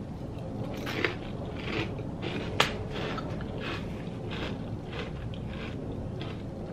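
A person chewing a crunchy kettle-cooked potato chip: crisp crunches coming roughly every half second, with one sharp crack about two and a half seconds in.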